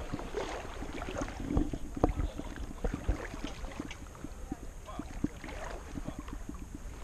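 Shallow sea water sloshing and splashing close to the camera at the surface, with many small irregular splashes over a steady low rumble of water and wind.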